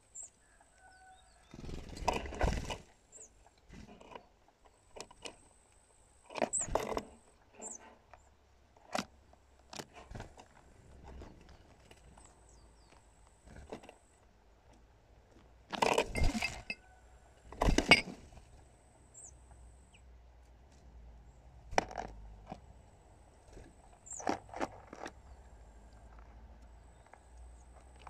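Squirrel scrabbling and knocking about close to the microphone: irregular short bursts of scratching and knocking a few seconds apart, the loudest pair past the middle.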